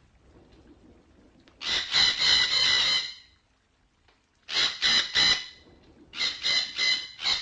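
Red-breasted parakeet giving harsh squawking calls in three bouts. The first is a run of about a second and a half, starting near two seconds in. Then come three short notes, then a quick series of notes near the end.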